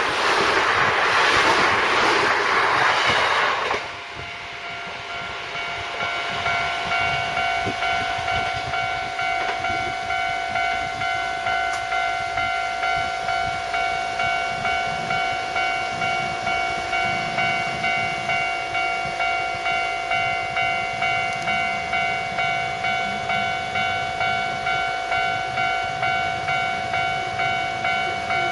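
An electric train runs past the level crossing with loud rolling wheel noise that ends abruptly about four seconds in. The level-crossing warning bell then rings on steadily, a repeated electronic ding about twice a second.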